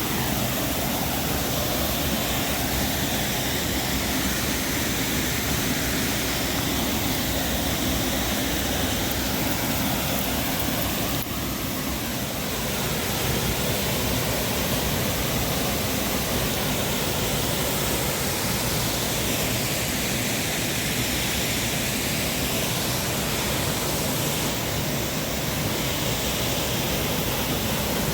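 Waterfall rushing: a steady, loud roar of falling water close by.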